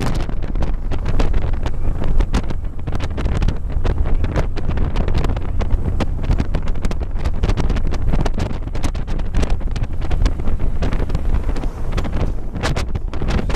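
Wind buffeting the microphone on a moving touring motorcycle, gusting irregularly, with the motorcycle's engine running underneath as a steady low drone.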